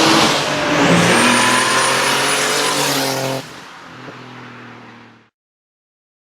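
BMW E36 325i straight-six engine revving hard under acceleration. Its pitch dips briefly about half a second in and climbs again. The sound falls sharply quieter about three and a half seconds in and stops near the end.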